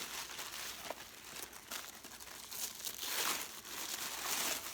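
Paper crinkling and rustling as a wrapped gift is unwrapped by hand, in uneven crackles with louder spells about three and four seconds in.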